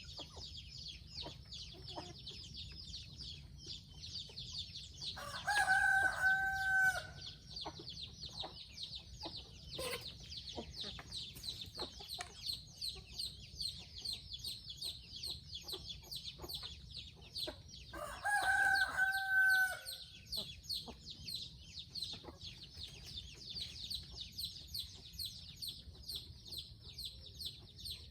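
A rooster crowing twice, a few seconds in and again after about 18 seconds, each crow a full cock-a-doodle-doo of about two seconds. A steady, rapidly pulsing high-pitched drone and a few small clicks run underneath.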